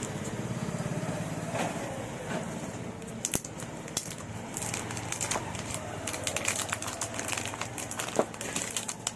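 Crackling and crinkling of packaging being handled and opened, with scattered sharp clicks that grow denser in the second half.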